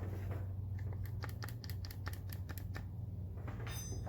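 A quick run of sharp clicks, several a second, over a steady low hum.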